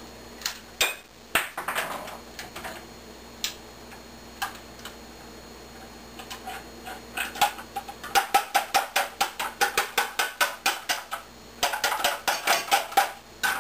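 Kitchenware clattering at a stand mixer: scattered clicks and knocks as the slicer/shredder attachment is handled, then from about eight seconds a fast run of light taps, about six a second, against the stainless steel mixing bowl.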